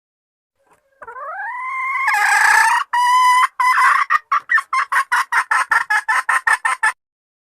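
Junglefowl hen calling to solicit mating: a drawn-out note rising in pitch for about two seconds, then a quick run of short clucks, about five a second, that stops abruptly.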